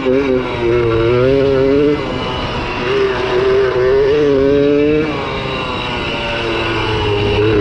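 1982 Kawasaki KDX80's two-stroke single-cylinder engine running under throttle, its pitch rising and falling several times as the throttle is opened and eased off.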